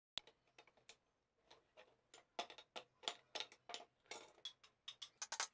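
Small hammer tapping a heated rivet in an axe head on an anvil, peening it over: a run of sharp metallic taps, a few a second, light at first and growing louder.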